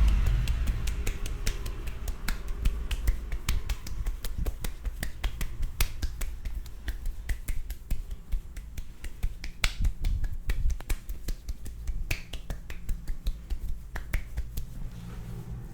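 A barber's fingers snapping, dozens of quick, sharp snaps at an uneven pace.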